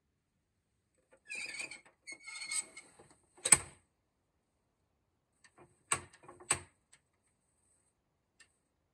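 Wooden tambour shutter of a desk cabinet being worked in its track: a run of slat rattling from about a second in, a sharp knock a little after the middle, the loudest sound, then two more knocks and a last small click.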